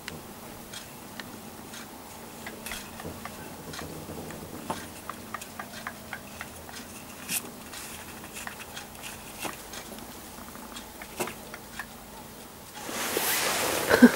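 Soft, irregular wet clicks of a mother cat licking and nibbling a kitten's fur. Near the end, a loud rustling as fur and fingers rub close against the microphone.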